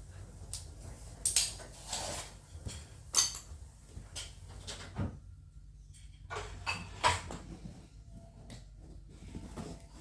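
Packaging being opened by hand: irregular scrapes, taps and rustling swishes of cardboard and wrapping being cut and pulled, with a few sharper bursts.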